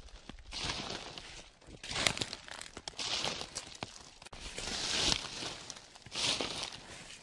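Footsteps crunching through dry fallen leaves at a slow walking pace, about five crunching steps with a crackle of leaves between them.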